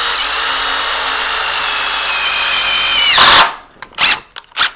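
Cordless drill running at speed, driving a self-tapping screw into the brake's metal measuring bar. Its steady high whine sinks slightly in pitch and stops about three seconds in, followed by a few sharp clicks.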